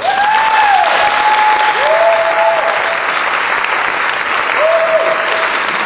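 Audience applauding, starting suddenly as the song ends, with three whistles from the crowd that rise and fall in pitch: one at the start, one about two seconds in and one near five seconds in.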